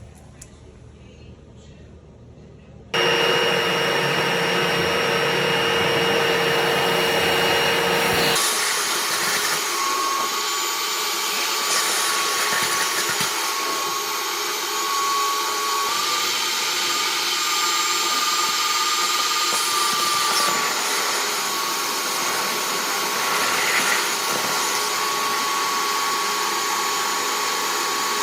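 Vacuum motor running loudly and steadily with a whine. It starts about three seconds in, and about eight seconds in the sound changes abruptly to a higher-pitched whine.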